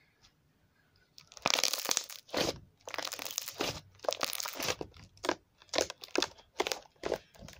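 Crunchy slime being squeezed and worked close to the microphone: a run of crackling, popping squishes that starts about a second in.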